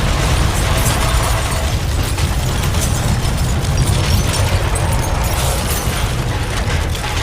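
Earthquake shaking: a deep, steady rumble with continuous irregular rattling and clattering of things being shaken.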